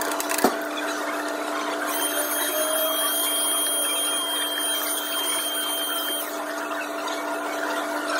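Handheld electric air blower blowing coffee grounds out of a coffee grinder's burr chamber: a high steady whine with rushing air from about two seconds in until about six seconds in. A sharp click comes about half a second in, over a steady hum.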